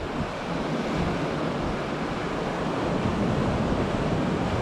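Gulf of Mexico surf breaking and washing up a sand beach in a steady wash, with wind gusting on the microphone.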